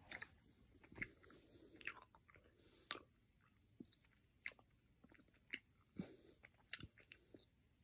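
Faint, irregular wet clicks of a person chewing soft, chewy candy with the mouth close to the microphone.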